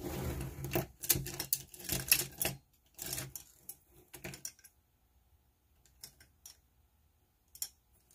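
Art supplies being rummaged through on a desk: small hard objects clicking and clattering in a busy flurry for about four seconds, then a few scattered clicks.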